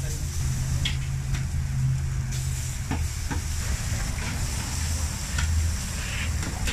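Liver with onions sizzling on a steel taco griddle while a knife and spatula chop and stir it, with a few sharp clicks and scrapes of metal on the steel in the first few seconds. A steady low hum runs underneath.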